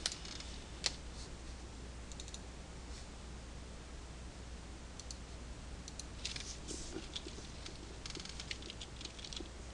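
Faint computer mouse clicks and short runs of keyboard keystrokes: a single sharp click about a second in, then clusters of rapid key presses around six and eight seconds in. A low steady hum lies underneath.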